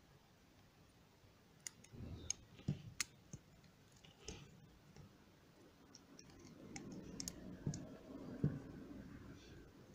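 Faint, scattered clicks and small taps of metal parts as a rebuildable atomizer's deck and coils are handled with a small tool, with rustling of hands in the second half and a slightly louder knock near the end.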